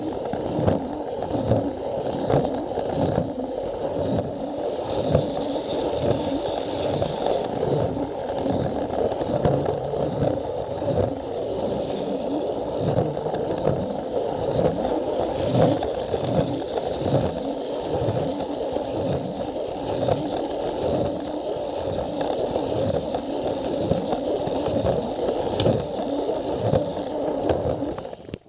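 A Plarail battery-powered toy train running on plastic track: a steady whir and rattle of its small motor, gears and wheels. Under it is a regular low knock about one and a half times a second.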